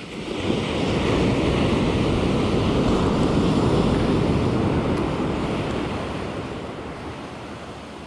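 Ocean surf: a wave breaking and washing up the sand, swelling over the first second and fading out slowly over the next several seconds.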